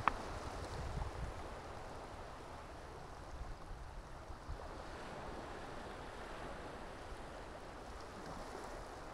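Small waves washing steadily on the seashore, with light wind on the microphone. There is a brief sharp click right at the start.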